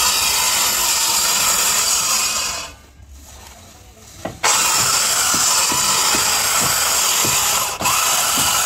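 Handheld electric circular saw cutting through wooden boat hull planking, running under load. It stops for about two seconds partway through, then starts again and cuts on.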